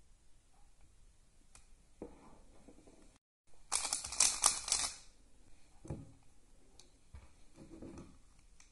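Yuxin Little Magic 3x3 speed cube turned quickly for about a second, a dense burst of plastic clicking and clacking from its freshly lubed layers. Fainter handling clicks and rustles of the cube and lube bottle come before and after.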